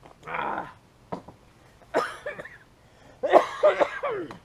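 A man coughs, then makes wordless vocal sounds that are loudest in the last second or so.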